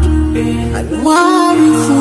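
Background music: held notes over a steady bass, with a melody line rising about a second in.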